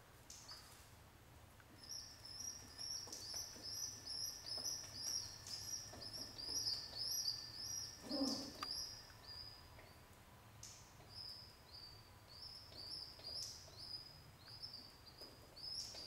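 Pigeon squab squeaking to beg for food while being fed: a run of short, high, slightly falling peeps about two or three a second, which pauses briefly about ten seconds in and then starts again. A short, lower rustle is heard about eight seconds in.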